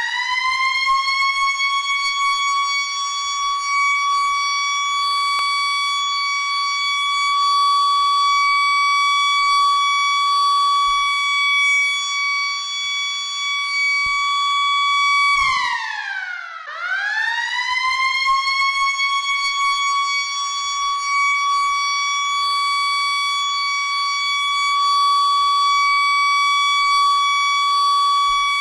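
School recess siren wailing: it winds up to a steady high tone in the first second and holds it. About fifteen seconds in the pitch slides down, then climbs back up within a couple of seconds and holds steady again.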